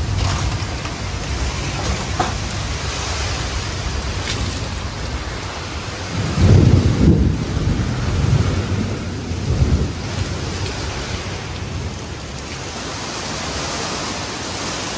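Heavy rain pouring down in a thunderstorm, with rolling thunder rumbling loudest about six to seven and a half seconds in and again near nine and a half seconds.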